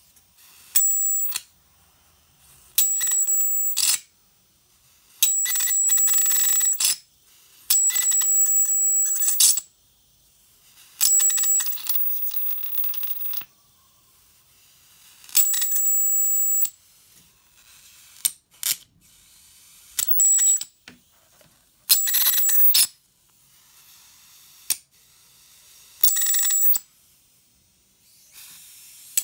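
A high-voltage generator driving a fluorescent tube, switched on in about ten short bursts. Each burst is a steady high-pitched whine with crackling from the arcing.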